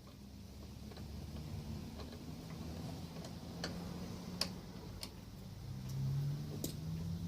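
Scattered sharp metallic clicks and clinks of hand tools working on a lawnmower's front end, a few over several seconds, the loudest about halfway through. Under them runs a low droning hum that swells near the end.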